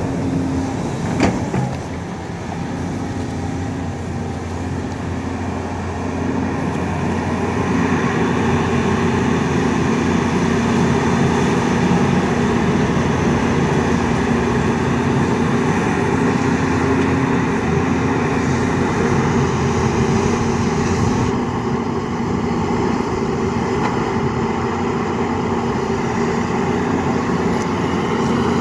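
Volvo EC210B LC crawler excavator's diesel engine running steadily as the machine works its boom and bucket in wet mud, growing louder about seven seconds in. A single sharp knock about a second in.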